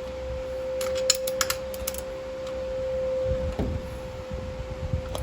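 Ratchet wrench clicking in a quick run of about half a dozen clicks about a second in, as the leaf-spring mounting bolts are tightened. A steady high hum runs underneath, and a few dull knocks follow later.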